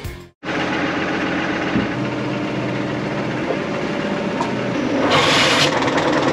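Tractor engine running steadily, driving a PTO-shaft pump that churns the crusted sewage in a septic tank. A brief burst of rushing noise a little after five seconds in.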